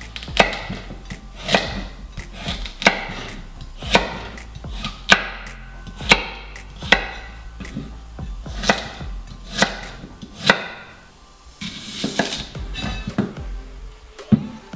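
Chef's knife chopping a carrot into thick rounds on a wooden cutting board, each cut ending in a sharp knock of the blade on the board. About ten cuts, roughly one a second, stopping about eleven seconds in.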